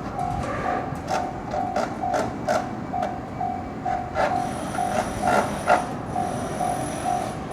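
Japanese level-crossing warning bell ringing steadily at about two strokes a second while a train passes, its wheels clacking over rail joints in pairs. A thin high whine sets in about four seconds in.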